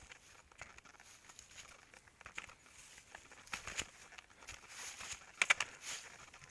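Dry fallen leaves and twigs crackling and snapping on a paved trail as someone moves over them, heard as irregular sharp clicks and rustles over a light hiss, with a quick cluster of crackles about five and a half seconds in.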